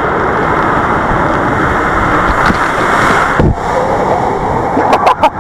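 Raft sliding fast down a water slide: a loud, steady rush of water and wind against the camera, broken by a brief drop-out about three and a half seconds in and a few sharp knocks near the end.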